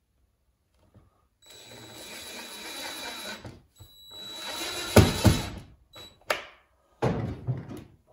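Power drill running in two spells of a couple of seconds each, getting louder as it drives screws for a thermostat wall-mount backing. The runs are followed by a few sharp clicks and knocks.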